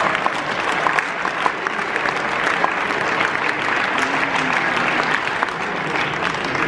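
Audience in a large hall applauding, a steady patter of many hands clapping.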